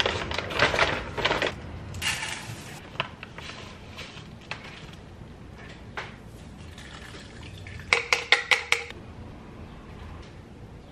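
Household handling noises: rustling in the first couple of seconds, a few scattered knocks, then a quick run of about six sharp clicks or clatters near the end.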